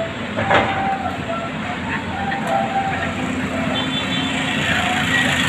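Busy city street traffic noise: a steady rumble of passing vehicles, with brief faint tones now and then.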